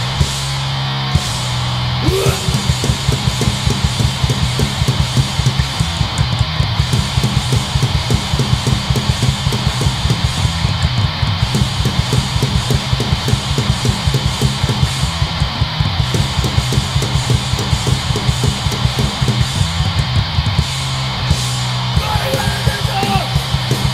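Hardcore punk band playing live: distorted electric guitar over a drum kit. About two seconds in, the drums break into a fast run of rapid, even hits that carries on until near the end.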